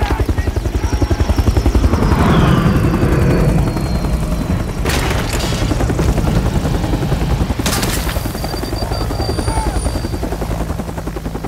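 Military helicopter rotors chopping steadily in a film battle soundtrack. Two sharp blasts or shots cut through, about five seconds in and again nearly eight seconds in, and a thin falling whine runs over the first few seconds.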